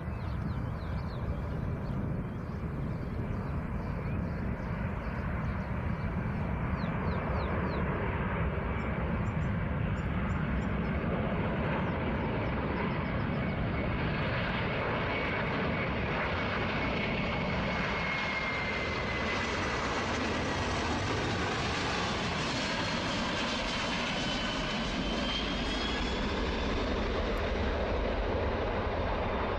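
Boeing C-17 military transport jet's four turbofan engines on a landing approach: a steady engine rumble that grows brighter about halfway through, with a thin whine that slowly falls in pitch as the aircraft passes.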